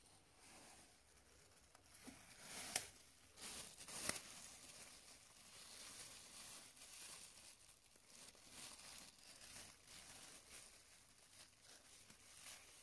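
Faint rustling and crinkling, with two sharp clicks about three and four seconds in.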